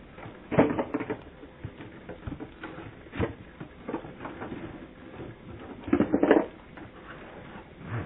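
Bears knocking a cooler about and dragging it off: scattered knocks and scrapes, the loudest cluster about six seconds in. Heard through a doorbell camera's thin, muffled microphone.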